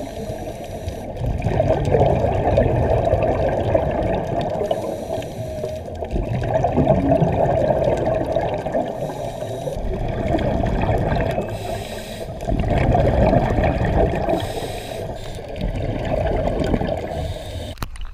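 Underwater, muffled through a camera housing: scuba exhaust bubbles gurgle and rush in surges every few seconds as a diver breathes out through the regulator. The sound cuts off abruptly near the end.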